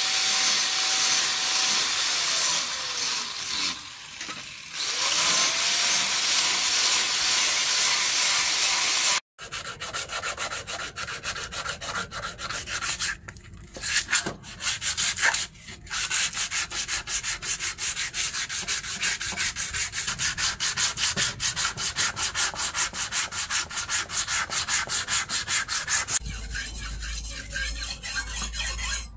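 An angle grinder with a sanding disc runs against a wooden axe handle, its whine dipping and recovering about four seconds in. After a sudden break, the handle is rubbed by hand in quick, even strokes for most of the rest. Near the end comes a softer rubbing over a low hum as the steel axe blade is worked on a sharpening stone.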